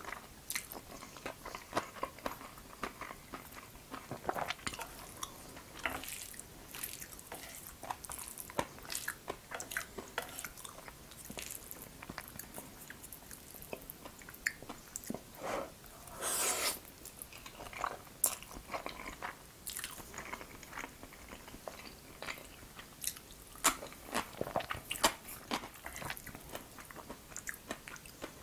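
Close-miked eating of jajangmyeon, Korean black bean sauce noodles: slurping the noodles off chopsticks and chewing, with many small wet mouth clicks.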